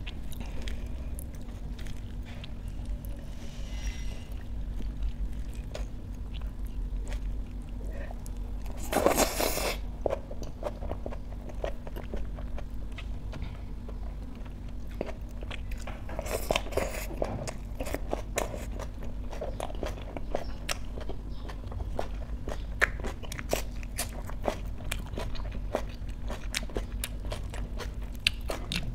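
Close-miked eating: chewing and biting with many small wet, crunchy clicks as food eaten by hand is chewed. A louder crunchy burst comes about nine seconds in, and more crunching follows around sixteen to seventeen seconds.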